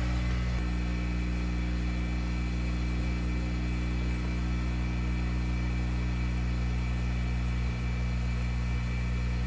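Steady machine hum with a low rumble in a metalworking shop, unchanging throughout.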